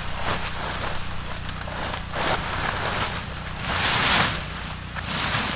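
Kubota BX compact tractor's diesel engine idling steadily, with several short swells of hiss over it, the loudest about four seconds in.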